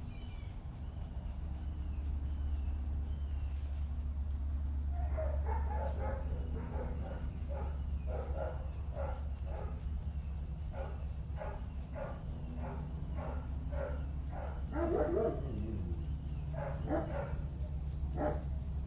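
Dogs barking in a kennel: a run of short barks, about one or two a second, starting about five seconds in, over a steady low hum.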